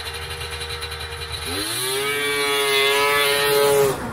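Polaris Indy 650 three-cylinder two-stroke snowmobile engine with triple expansion-chamber pipes running steadily, then snapped to full throttle about a second and a half in: the pitch climbs fast and holds high before the throttle is chopped just before the end. It revs out crisp with no bog, the sign of a carburetor tune the owner calls spot on.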